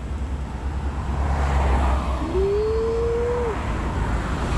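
Road traffic: a vehicle passes with a swelling rush of tyre noise over a steady low rumble. About two seconds in there is a brief tone, rising slightly in pitch, that lasts just over a second.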